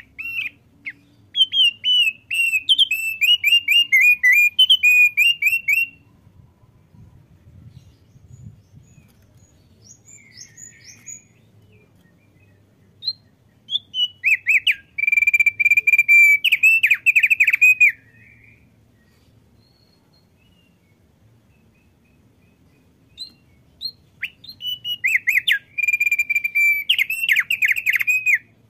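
Male thick-billed heleia (opior paruh tebal) singing: three bursts of rapid whistled notes a few seconds each, with pauses between.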